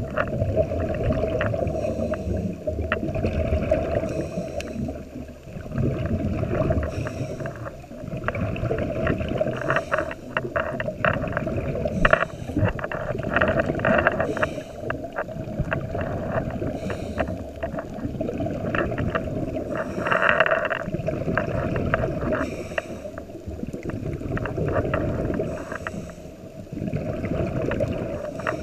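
Scuba diver breathing through a regulator, heard underwater: a steady muffled rumble of water, with crackling, bubbling bursts of exhaled air every few seconds.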